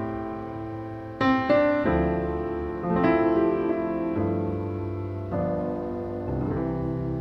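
Slow piano music, with sustained chords changing about once a second.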